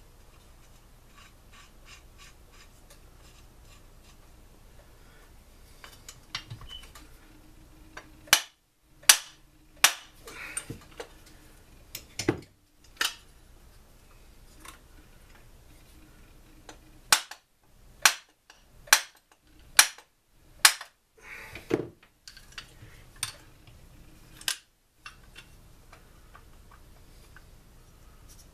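Sharp metallic taps and knocks of hand tools against parts of a Stihl SR 420 blower's two-stroke engine during teardown: faint handling clicks at first, then about a dozen loud strikes, several in a run about one a second.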